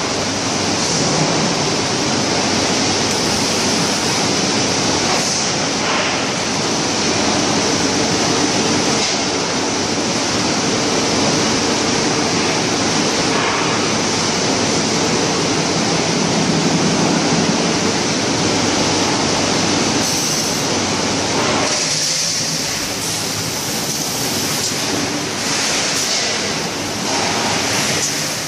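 Steady, loud machinery noise on a steel drum production floor: a dense hiss with a faint hum under it, whose low end thins out about three-quarters of the way through.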